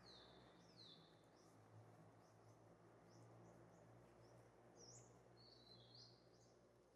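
Faint bird chirps: a string of short, high, sweeping notes over a low steady hum.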